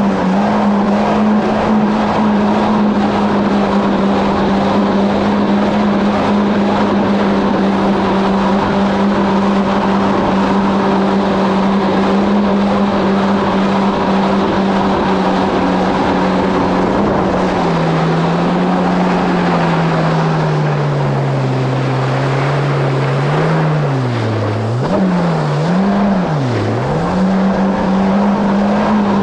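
2017 Kawasaki SX-R 1500 stand-up jet ski's four-stroke four-cylinder engine and jet pump running at a steady cruising speed, with water rushing under the hull. About two thirds through, the engine note sags as the throttle eases off, then dips sharply and picks back up three times before settling back to the steady cruising pitch near the end.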